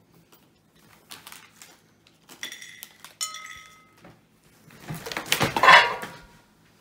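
Tableware clinking several times with a short ringing tone, then a louder, longer scraping and rustling noise about five seconds in.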